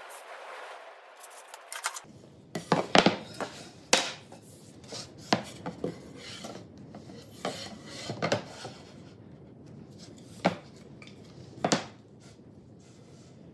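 A pencil scratching along a steel rule on an MDF board, then wooden battens knocking and clattering as they are picked up and set down on the board, in a dozen or so irregular sharp knocks.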